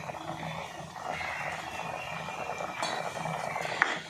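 A plastic spatula stirring thick coconut mango curry in a pan, with one sharp clink a little before the end.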